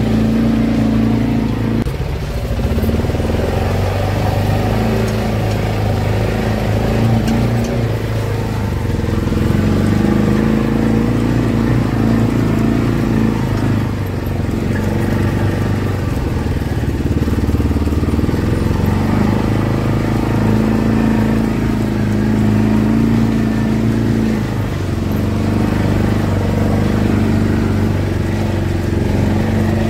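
Side-by-side utility vehicle engine running steadily as it drives through snow, its drone rising and falling a little with the throttle.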